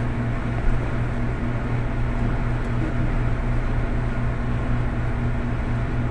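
A steady low machine hum, with no clear sound of handling over it.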